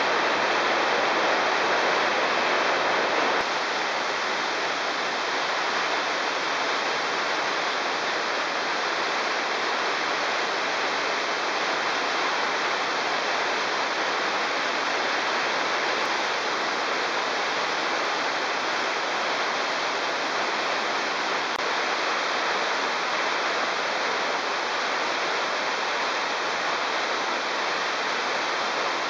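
Waterfall pouring down a narrow rock canyon: a steady, dense rush of falling water, slightly quieter from about three seconds in.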